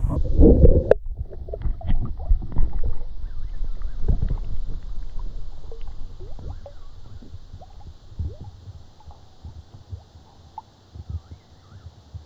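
Muffled gurgling and sloshing of water around a camera held in the water, loudest in the first second, followed by scattered small splashes and drips that fade away.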